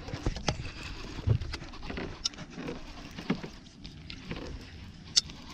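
Handling noise from rigging a soft-plastic lure on a baitcasting rod: scattered small clicks and taps over a low background of wind and water around the boat.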